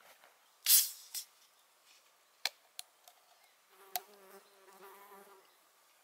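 A flying insect buzzing close by for about a second and a half past the middle. Before it come a brief rustle and a few sharp clicks.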